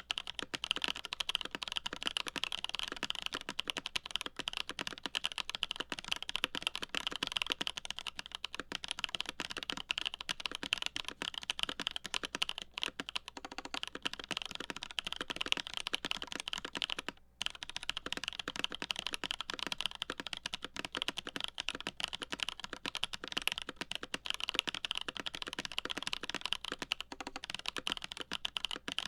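Continuous typing on a CA66 mechanical keyboard with lubed Holy Boba tactile switches, GMK Café keycaps and a full aluminum plate. The key clacks come densely and evenly, with one brief pause a little past halfway.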